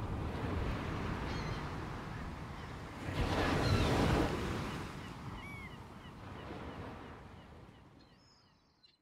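Ocean surf: a steady wash of waves with one wave surging up about three seconds in, and a few faint high bird calls. The sound fades out near the end.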